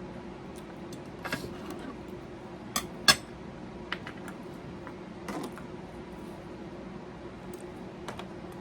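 Scattered clinks and knocks of dishes and containers being handled and set down while a table is cleared, the sharpest pair about three seconds in, over a steady low hum.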